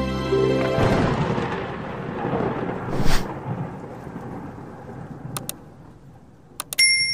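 Logo-reveal sound effects for an intro animation: a long noisy rush swells about a second in, with a sharper hit about three seconds in, then slowly fades. Near the end come a few mouse clicks and a bright bell ding as a subscribe button is pressed.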